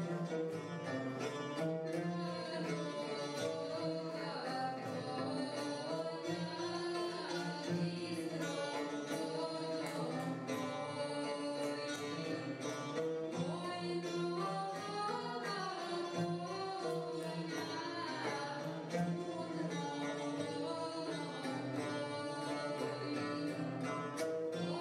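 Live traditional Serbian folk music from a small acoustic ensemble. A small pear-shaped plucked lute of the tamburica type leads with fast, closely picked notes over the other instruments.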